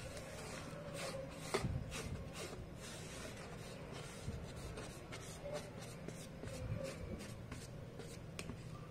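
Fingers scraping and tapping spices and ginger-garlic paste off a plastic plate into a plastic tub of minced meat: faint rubbing with many light, irregular clicks and scrapes.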